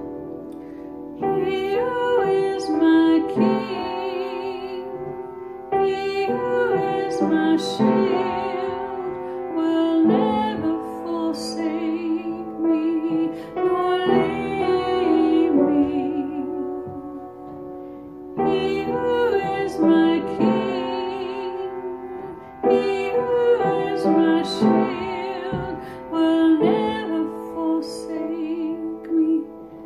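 A woman singing a slow worship song in phrases of a few seconds, her voice wavering with vibrato, over piano accompaniment.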